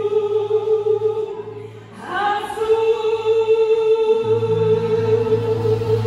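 Church choir singing long held chords with a live band. The first chord fades about two seconds in and a new one is held, with low notes joining about four seconds in.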